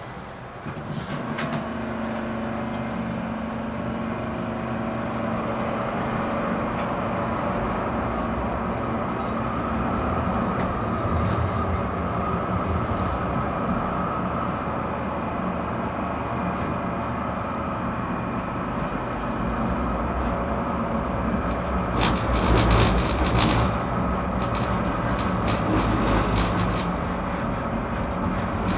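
Ride noise inside a city tram in motion: a steady hum from the drive and rolling wheels on rails. About 22 seconds in there is a louder stretch of clattering.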